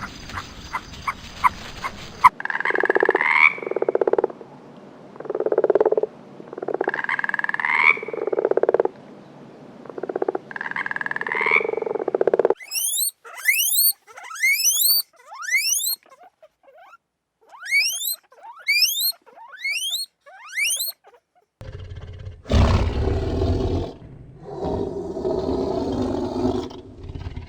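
A succession of different animal calls. Repeated calls come about once a second for roughly ten seconds, then a run of quick, high, rising chirps, then a deeper, longer rough call near the end.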